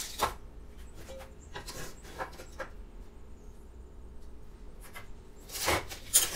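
A tape measure and a metal speed square handled on a wooden board while it is measured and marked: scattered light taps, clicks and rubs, with louder short scrapes about five and a half seconds in and again just before the end.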